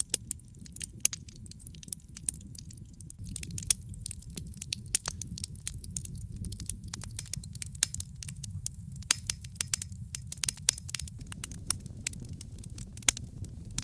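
Wood fire crackling: many sharp pops and snaps, thicker from about three seconds in, over a low steady rumble of burning.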